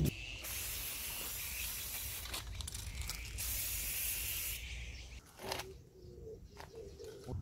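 Aerosol lacquer spray can hissing in several long bursts with short breaks between them, as paint is sprayed onto a metal wire shelf. The spraying stops about four and a half seconds in, and a couple of light knocks follow.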